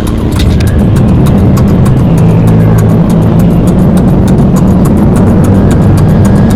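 Loud, distorted, rumbling drone with a low hum of several held pitches, overlaid with rapid crackling clicks.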